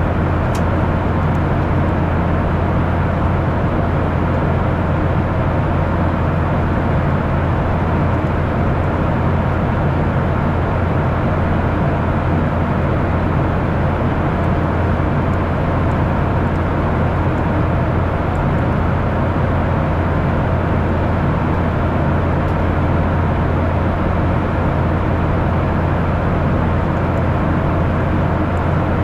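Steady cabin noise inside a Boeing 737-800 airliner: an even rush of engine and airflow noise over a strong low hum, unchanging throughout.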